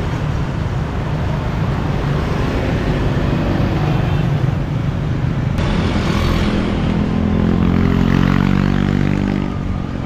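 Motorbike street traffic with a steady low rumble. One engine's hum swells to its loudest about eight seconds in, then drops away just before the end.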